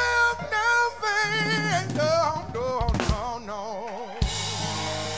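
A male singer holds long notes with wide vibrato over piano and a live band. About four seconds in a sharp hit lands and the band holds a chord.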